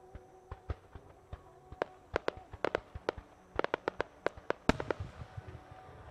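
Aerial firework shells bursting in a rapid, irregular string of sharp bangs and pops. The loudest bang comes about three-quarters of the way through, and the bangs thin out near the end.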